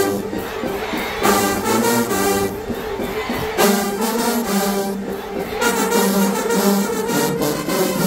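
Marching band brass section, sousaphones, trombones and trumpets, playing a loud stand tune with percussion, in repeated phrases that start anew about every two seconds.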